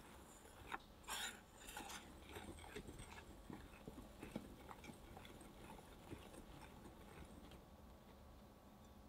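Whisk stirring dry flour, almond powder and powdered sugar in a glass bowl: faint, irregular scrapes and light taps of the wires against the glass and through the powder. The taps are busiest in the first few seconds and sparser after.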